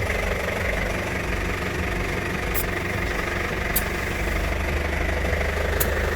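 Onboard 12-volt air compressor running steadily, with three faint brief ticks over it.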